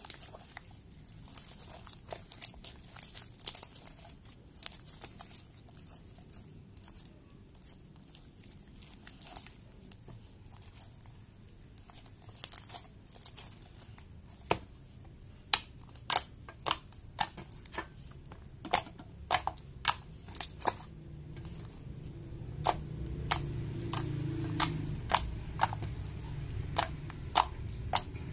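Purple detergent-activated slime being stretched and kneaded by hand, giving sticky clicks and pops that come more often in the second half. A low rumble builds under them in the last several seconds.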